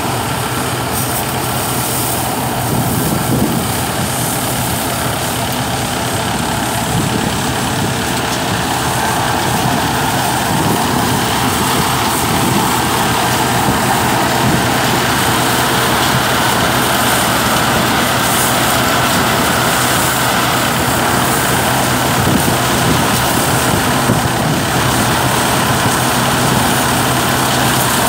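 Tractor-driven crop thresher running steadily under load as vines are fed into it: the tractor's diesel engine hum blended with the whir and rush of the threshing drum and blower.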